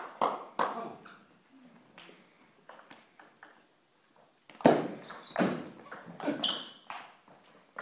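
Table tennis rally: the ball clicks sharply off the bats and table about twice a second, starting a little over halfway through, after a few faint taps. Brief high squeaks come in between the hits.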